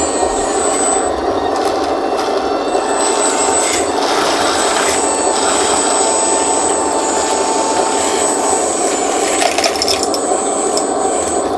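1:14-scale RC hydraulic skid steer loader (Double E Bobcat E116 model) working, its electric hydraulic pump and drive motors running with a steady buzzing hum and a thin high whine that comes and goes.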